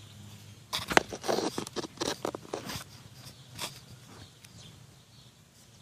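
Handling noise from the recording device as it is moved and set in place: a scatter of sharp clicks, taps and rustles, busiest about a second in and thinning out after three seconds.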